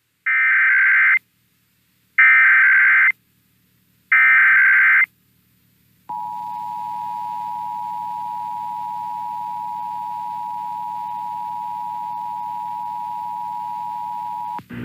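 Emergency Alert System SAME header: three short bursts of warbling data tones, about a second apart, then the EAS two-tone attention signal (853 and 960 Hz together) held steady for about eight and a half seconds. It marks the start of a required monthly test alert.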